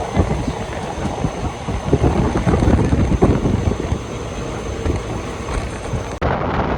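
Ernakulam–Okha Express passenger coach running along the track: a steady rumble with irregular knocks from the wheels, heard from inside the coach. About six seconds in the sound changes abruptly to a windier rumble.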